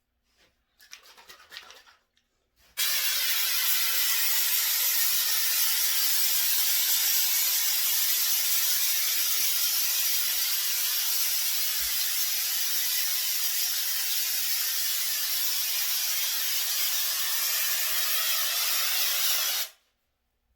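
Aerosol wall-texture spray can (Homax wall texturizer) spraying: one long, steady hiss that starts abruptly about three seconds in and cuts off sharply near the end, after a few faint handling noises.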